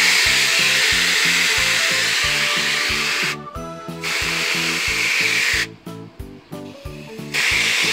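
Garden hose spray nozzle jetting water into a bucket of soapy water, whipping it into suds. It gives a steady, loud hiss that cuts out twice briefly, about three and a half seconds in and again for over a second near the six-second mark.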